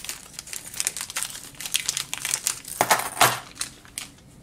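Crinkling of a small clear plastic bag as it is picked open by hand, loudest about three seconds in and stopping shortly before the end.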